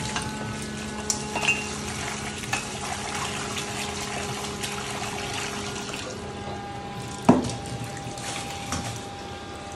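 Kitchen tap running into a stainless-steel sink as leafy greens are rinsed by hand in a metal pan, with small clinks of metal. A single loud clank about seven seconds in as the pan is set down.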